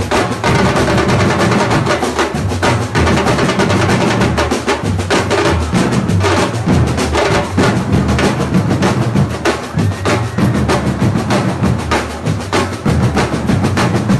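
Background music with a steady drum-and-percussion beat over a bass line.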